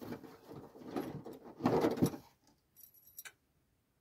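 Hands rustling and handling small table-assembly parts, loudest about two seconds in, then a few light clinks of small metal pieces such as washers and nuts.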